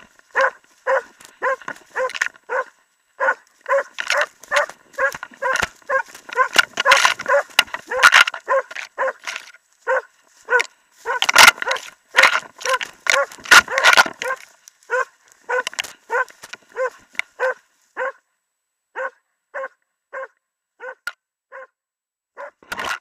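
Jämthund (Swedish elkhound) bay-barking at a moose (ståndskall), recorded up close from a camera on the dog's own harness: a steady run of short barks, about two a second, that space out with gaps in the last few seconds.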